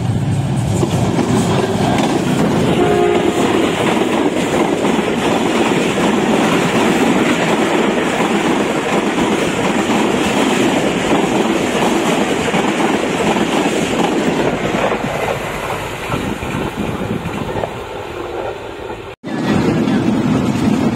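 Pakistan Railways passenger train passing at speed on the adjacent track, a loud steady rush of wheels clattering over the rails. The sound breaks off suddenly near the end.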